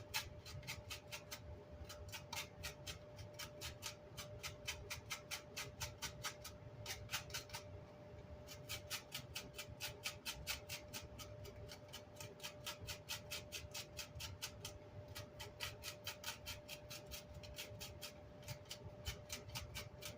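Short, rhythmic scrubbing strokes on amplifier grill cloth, about three or four a second, stopping briefly twice: residue being rubbed off the fabric.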